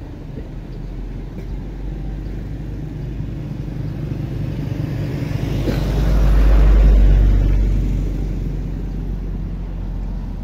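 A motor vehicle passes close by, rising to its loudest about six to seven seconds in and then fading, over a steady low rumble of traffic.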